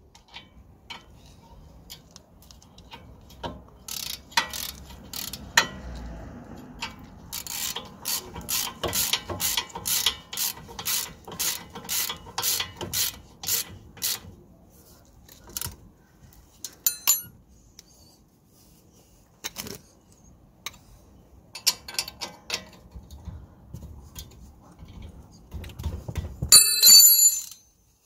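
Socket ratchet clicking in quick even runs as the lower brake caliper bolt is screwed in, with scattered metallic clinks of the tools. A loud ringing metal clatter comes near the end.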